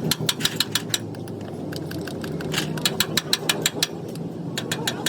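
Rapid light tapping on metal in three short bursts, several quick strokes a second, like a hammer working sheet metal, over a steady low mechanical hum.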